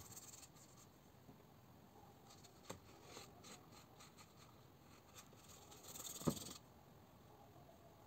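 Quiet brushing of a watercolour brush on paper, with a few faint ticks and a soft knock about six seconds in.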